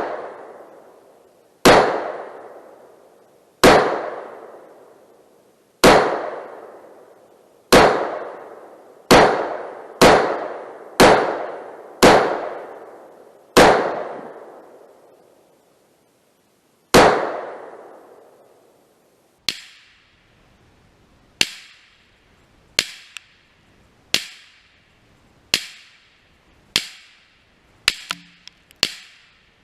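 Gunshots at a shooting range: about ten loud single shots one to three seconds apart, each trailing off in a long echo. About two-thirds of the way through they give way to a quicker series of shorter, sharper and quieter cracks.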